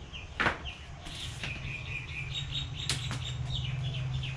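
Small birds chirping in the background, a run of short high notes and quick falling calls, over a steady low hum. Two sharp knocks, about half a second in and near three seconds.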